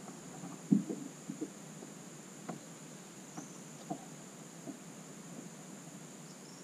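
Steady high insect shrilling from the riverbank vegetation, with a few light knocks and taps, the loudest just under a second in.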